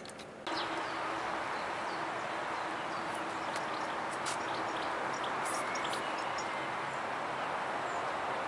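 Steady outdoor rushing noise with many short high bird chirps over it, starting suddenly about half a second in, plus a faint steady hum beneath.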